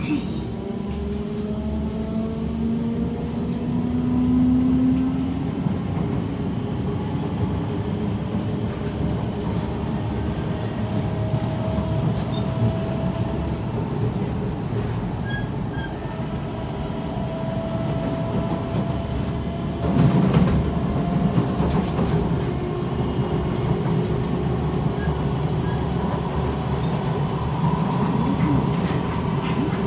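Kawasaki C151 metro train's traction motors whining in several slowly rising tones as it picks up speed, over steady wheel and track rolling noise. A louder rumble comes in about twenty seconds in.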